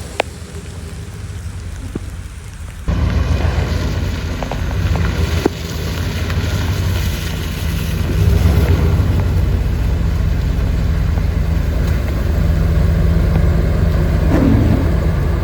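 A two-wheel-drive vehicle's engine running under heavy load while climbing a muddy hill, getting louder about three seconds in.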